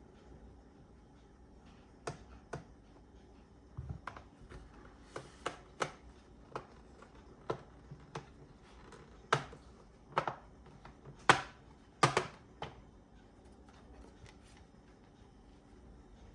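Irregular sharp clicks and taps of hard plastic and small tools while a laptop is being worked on, about twenty over the stretch, the loudest a pair a little past the middle.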